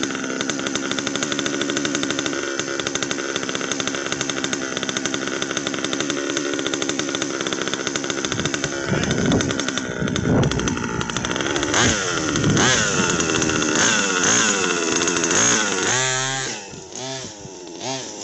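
Two-stroke engine of a large-scale gas RC buggy idling steadily, then revved up and down again and again as the buggy pulls away and drives off, growing fainter near the end.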